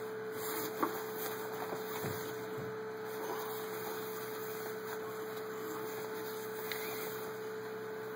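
A steady hum with faint rustling and handling noise of a cloth banner being unfolded and held up, with a few small ticks.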